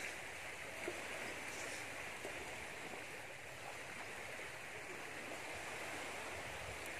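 Steady wash of small waves on a sandy shore, a continuous even hiss.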